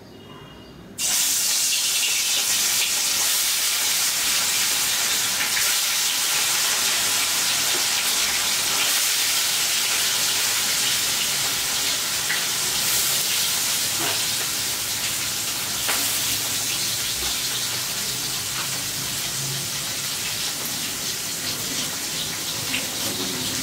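Turmeric-and-salt-rubbed fish pieces going into hot oil about a second in and frying with a loud, steady sizzle that slowly eases.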